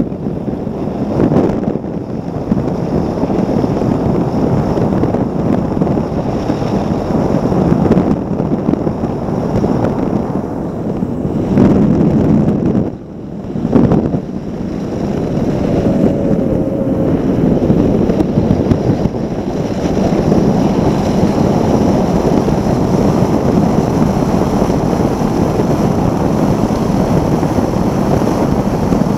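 Formula One tunnel-hull powerboat running at racing speed, heard from a deck-mounted camera: heavy wind buffeting on the microphone over the rush of water and spray off the hull. The level dips briefly about thirteen seconds in.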